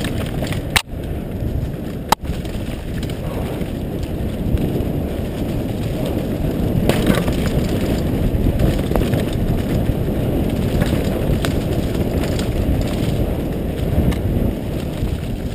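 Mountain bike ridden fast on a dirt singletrack, heard through a helmet-mounted action camera: a steady rumble of tyres on dirt and wind on the microphone, with two sharp knocks in the first few seconds.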